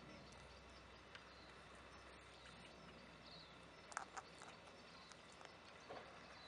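Near silence with faint outdoor hiss, broken about four seconds in by a quick cluster of sharp clicks and taps from a kākā parrot's beak as it eats apple.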